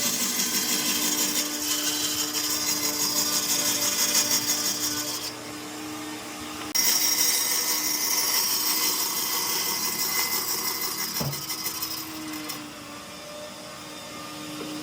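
Electric power tool running as it works wood, a steady whine over a dense hiss. It drops away suddenly about five seconds in, comes back sharply about two seconds later, and eases off near the end.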